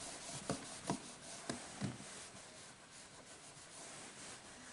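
Whiteboard being wiped clean: a faint rubbing hiss across the board, with a few soft knocks in the first two seconds.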